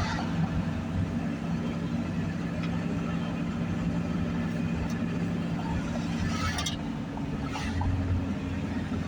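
Steady engine and road hum of a slow-moving car, heard from inside the cab, with two brief hisses about two-thirds of the way in.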